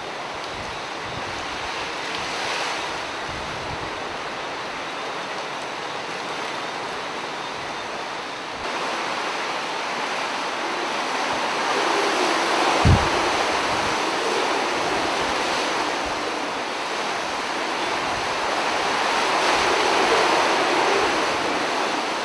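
Hurricane wind gusting through palm trees and shrubs and buffeting the microphone, a steady rushing that swells and eases. It grows louder about nine seconds in, and a single sharp low thump comes about thirteen seconds in.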